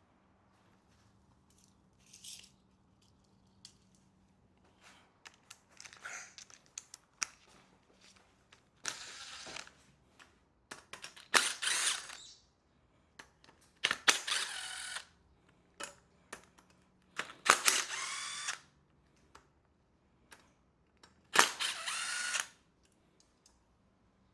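Cordless power tool with a 10 mm socket running in five short bursts of about a second each, some with a rising whine, spinning bolts out of an engine, with light clicks and clinks of tools and bolts between the bursts.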